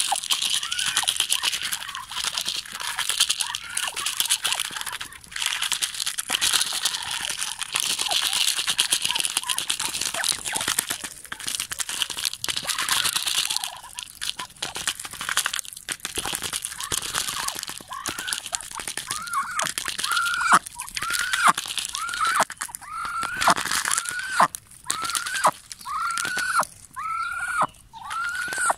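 Muscovy ducks feeding from a plastic bowl of dried corn kernels: bills clattering and rattling the kernels, with a steady crunching. In the second half, short arched calls repeat about once or twice a second.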